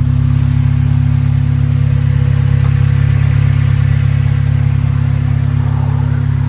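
Car engine running at steady revs, a constant low drone.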